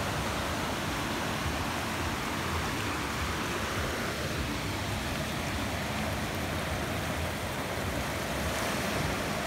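Ocean surf washing in and out at the water's edge: a steady rushing noise with no distinct splashes or breaks standing out.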